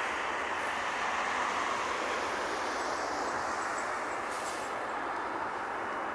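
Boeing 757 freighter's Rolls-Royce RB211-535E4 jet engines running, a steady roar that neither rises nor falls.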